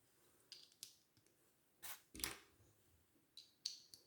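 Plastic Lego bricks clicking as they are handled and pressed onto studs: several faint, sharp clicks in three close pairs.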